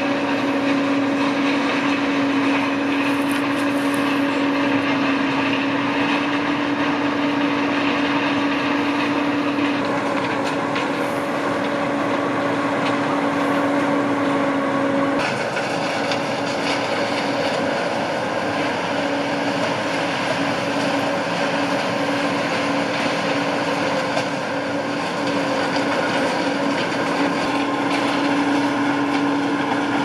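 John Deere combine harvester running in a corn field: a steady machine drone with a constant hum, shifting briefly about halfway through.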